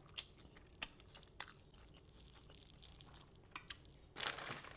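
A person eating instant noodles with their mouth close to the microphone: scattered soft clicks of chewing, then a short, louder noisy rush a little after four seconds in.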